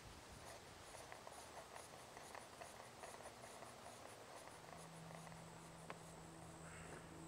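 Near silence, with faint scattered ticks and rustling.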